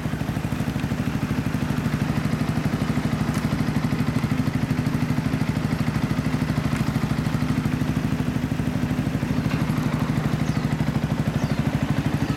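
Yamaha YZF-R125 with an aftermarket Leo Vince exhaust idling steadily with an even, rapid beat, with other motorcycles idling around it.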